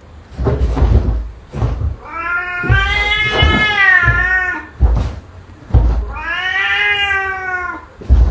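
Domestic cat giving two long, drawn-out meows, each about two seconds, the second starting about a second after the first ends. Low thumps sound in between.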